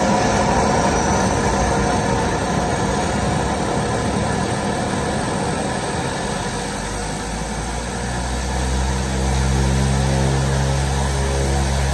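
Propeller aircraft engine running steadily on the apron, a loud, even mechanical noise; about eight seconds in a deep, steady engine hum grows stronger.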